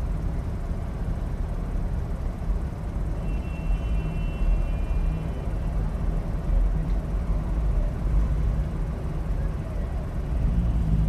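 A car heard from inside its cabin while driving: a steady low engine and road rumble. A faint high-pitched tone sounds for about two seconds near the middle.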